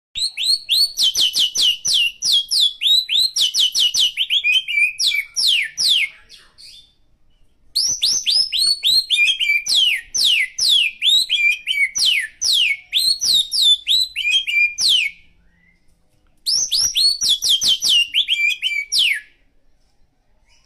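White-rumped shama singing canary-style song: fast runs of sharp down-slurred notes, loud and rapid, in three long bouts with short pauses between them. The bird is excited and copying canary song from a tutor recording.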